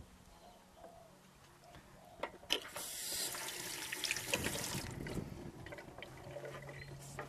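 A tap runs into a small stainless-steel sink for about two seconds while hands are rinsed under the stream.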